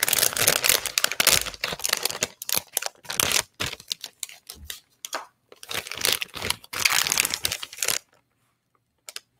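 A crinkly plastic snack bag being handled and pulled open close to the microphone: a long run of crackling and rustling that stops about eight seconds in.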